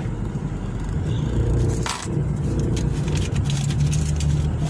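Car engine running at low speed with road noise, heard inside the cabin as the car creeps forward. There is a short scrape about two seconds in and light clicking and rustling later on.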